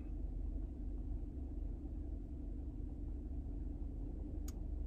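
Steady low rumble of a car's cabin, with a single sharp click about four and a half seconds in.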